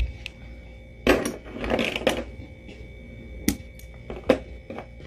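Hands rustling as they handle a crochet piece, then a few sharp clicks in the second half as small scissors snip the yarn end.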